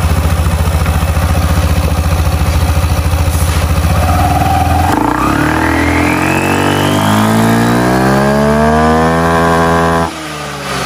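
Yamaha NVX scooter's single-cylinder engine idling, then opened to full throttle about five seconds in. Its pitch climbs steadily and is held high, then drops off sharply near the end as the throttle is released. This is a full-throttle test run of a newly fitted clutch assembly.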